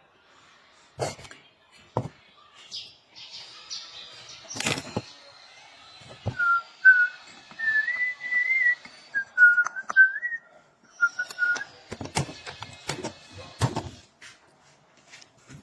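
A person whistling a short tune, one clear wavering tone stepping up and down in pitch for about five seconds in the middle. Several sharp knocks are heard before and after it.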